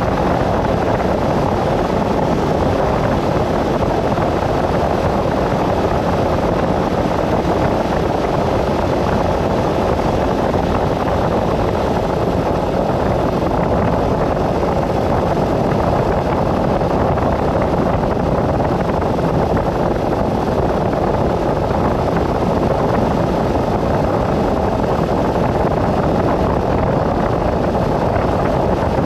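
Steady rushing wind and road noise of a vehicle travelling along a highway, with no distinct engine pitch standing out.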